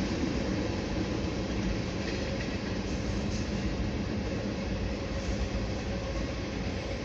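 CSX freight train Q634, a manifest with garbage cars, rolling past, making a steady, unbroken rumble and rattle on the rails.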